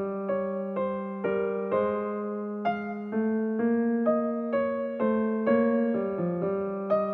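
Background music: a soft piano-style keyboard melody, with a new note struck about every half second over a sustained lower note.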